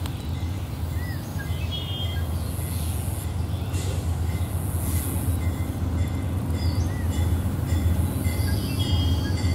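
Sound of an HO scale model diesel locomotive: a steady diesel engine rumble that slowly grows louder as the train approaches, with a few short high chirps.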